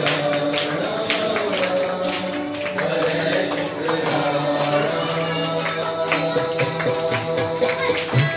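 Background music: a held, sustained melody over a steady percussion beat.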